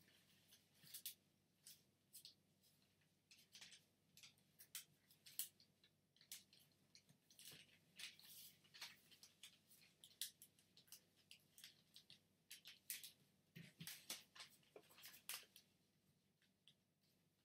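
Faint, irregular crisp rustling and crackling of origami paper being folded, creased and shaped by hand with a small wooden folding tool.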